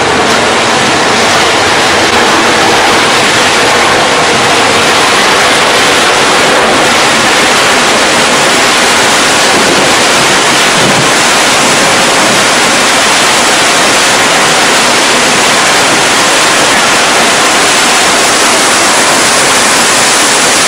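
Steady loud rush of a moving ferry's wake churning white water behind the stern, mixed with wind buffeting the microphone on the open rear deck.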